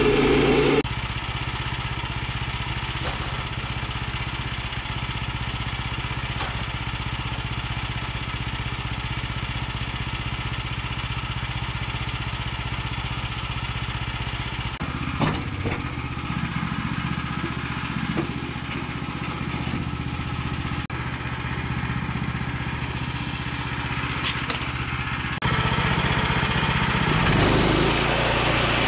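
A small engine running steadily. Its sound changes abruptly about a second in, about halfway through and again near the end.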